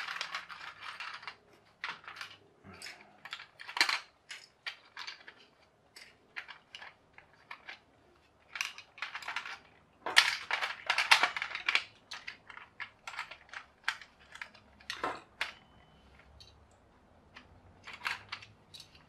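Plastic gears and parts of a build-your-own wind-up clock kit clicking and clattering as they are handled and fitted onto their pins in the clear plastic frame. Irregular clicks and taps, busiest about ten to twelve seconds in.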